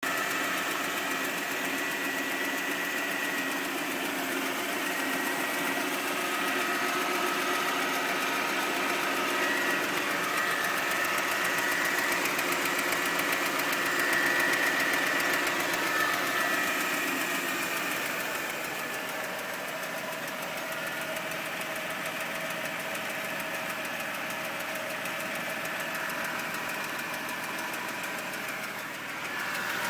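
Mercedes-Benz W164's 3.5-litre V6 petrol engine running with a clatter, knock and chattering tick, an unexplained fault noise from inside the engine. It gets a little quieter about two-thirds of the way through.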